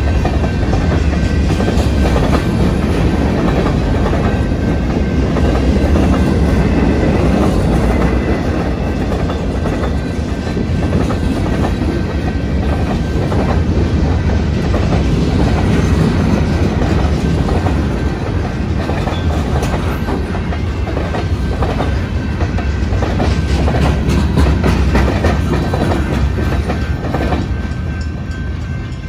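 A freight train of covered hoppers and boxcars rolls past close by: a steady rumble of steel wheels on rail, with rapid clicking as the wheels cross the rail joints. It eases off slightly near the end as the last cars go by.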